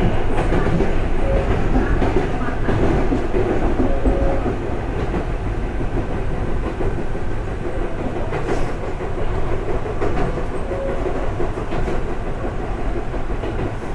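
Chichibu Railway 7500 series electric train running along the track, heard from inside the front cab: a steady rumble of wheels on rail with a few sharp clicks as the wheels pass over joints and points.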